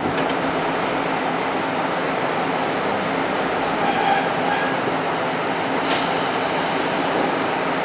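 Diesel railcar rolling slowly and coming to a stop, a steady running rumble. Short high squeals come about four seconds in, and a thin high squeal lasting about a second and a half near the end.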